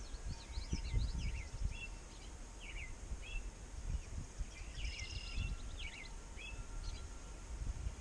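Small birds chirping and calling outdoors: many short, quick notes, mostly falling in pitch, scattered throughout, with a few thin whistled notes. Low, uneven rumbles of wind buffet the microphone underneath.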